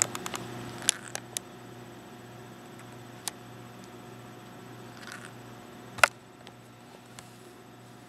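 Pet parrots, one a Meyer's parrot, moving about on a jacket: a few sharp clicks and taps, clustered about a second in and loudest about six seconds in, over a steady low electrical hum.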